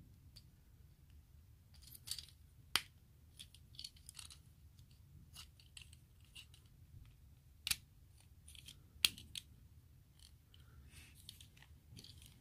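Plastic parts of a Transformers Legends-class Windcharger toy clicking, snapping and scraping as fingers press tabs and panels together to lock it into car mode, the pieces not wanting to clip in. Irregular small clicks, with a few sharper snaps standing out.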